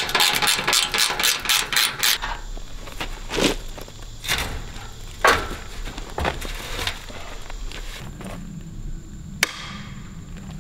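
Rapid hammer blows on a steel tube gate's hinge, about six a second for two seconds, knocking the gate loose from its hinge pin. Scattered single knocks and clanks follow.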